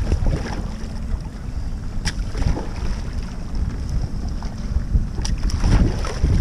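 Kayak paddle blade brought down onto the water in low-brace strokes, splashing twice: once about two seconds in and again after five seconds. Wind buffets the microphone underneath.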